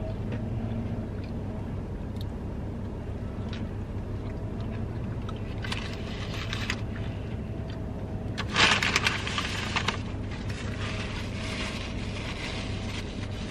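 Chewing a crispy fried chicken sandwich over a steady low hum inside a car, with a few faint clicks. About eight and a half seconds in, the foil wrapper crinkles loudly for a second or two as the sandwich is set down on it.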